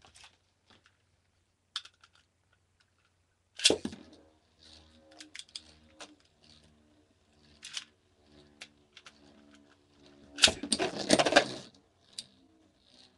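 Beyblade spinning tops (Earth Cetus and Twisted Tempo) launched into a plastic stadium. There are a few light clicks, then a sharp launch about four seconds in, then a steady whir of the top spinning on the stadium floor. A second, louder launch burst comes about ten and a half seconds in, and then both tops spin together.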